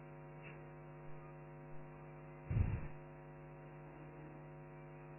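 Steady electrical mains hum with a ladder of overtones, and a brief low thump about two and a half seconds in.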